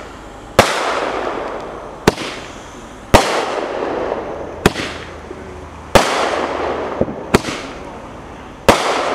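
Air Force military Roman candle firing shot after shot, about every two and a half to three seconds. Each shot is a loud pop followed by a fading fizz, and a single sharp crack falls between shots.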